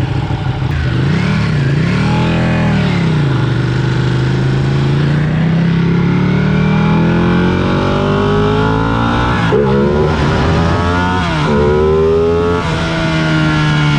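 Sport motorcycle engine revving up and back down once, then pulling in a long rising climb. It shifts up three times in quick succession about ten seconds in, each shift dropping the pitch before it climbs again, and then settles to a steady pitch.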